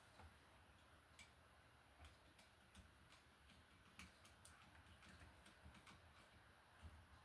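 Near silence with faint, irregular small clicks and ticks from wires being wrapped around and tightened under a wall receptacle's terminal screws.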